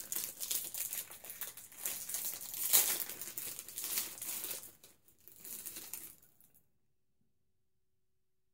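Clear plastic cookie wrapper crinkling as it is opened and a cookie is taken out, with louder crackles about three seconds in; the sound stops abruptly after about six and a half seconds.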